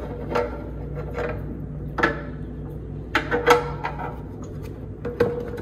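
Hands working wiring and fittings at a van's front bumper: irregular clicks, taps and rubbing, with sharper knocks about two seconds in and again around three and a half seconds in, over a steady low hum.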